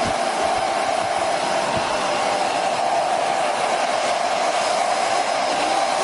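JMW MAX MF5001A folding hair dryer running steadily, blowing air onto wet hair.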